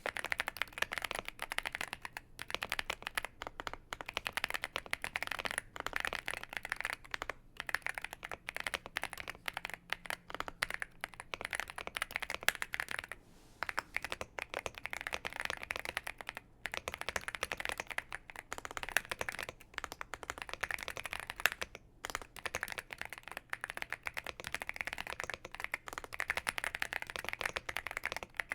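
Continuous fast typing on a Womier SK71 75% mechanical keyboard with CannonKeys Coffee Chip Ice Cream tactile switches: a dense stream of key clicks and clacks with only brief pauses.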